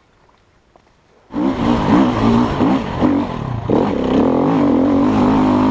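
Near silence for about a second, then abruptly an enduro dirt bike's engine running loud and close, revving up and down and then holding a steadier pitch.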